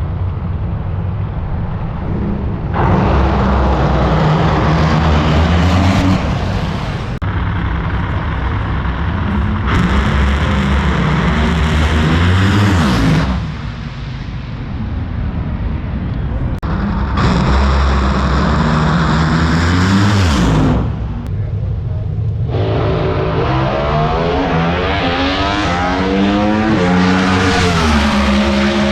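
Drag racing engines at full throttle in a string of cut-together clips, loud throughout. The pitch rises sharply toward the end of several clips as the engines rev up.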